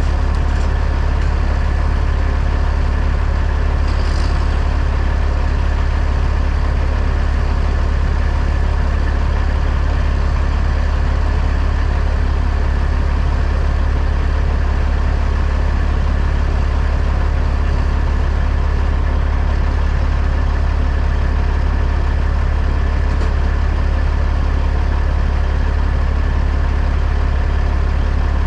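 Semi truck's diesel engine running at a steady, unchanging pitch: a constant low drone.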